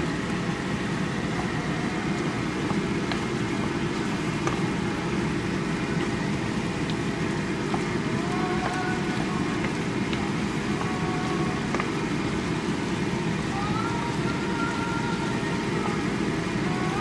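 Steady low kitchen rumble from the stove while beef curry cooks, with faint scattered scrapes and clicks of a wooden spatula stirring the thick curry in a nonstick pan.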